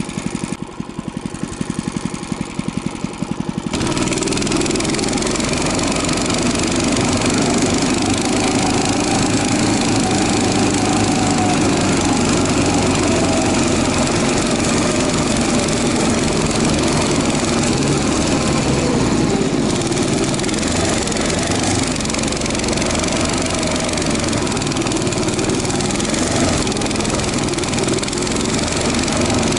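Albatros motor-dog (tracked snow tug) engine running slowly at first, then opened up about four seconds in and running steadily at higher revs as it tows the sled through snow.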